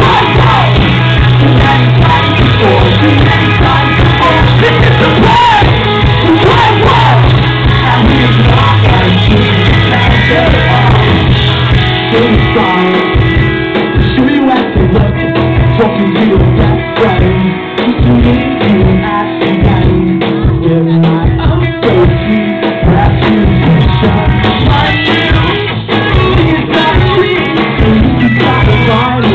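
Rock band playing live and loud through a club PA: electric guitars, bass and drums. A low note is held through the first ten seconds or so, then the drums come through more plainly from about twelve seconds in.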